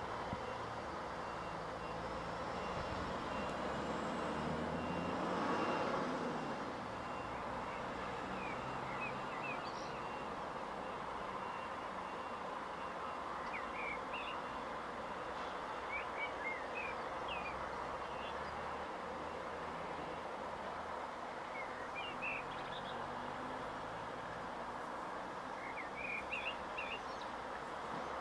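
Truck reversing alarm beeping steadily over a running truck engine, with a louder swell of engine noise about five to six seconds in. The beeping stops about a third of the way through. Small birds chirp in short bursts several times.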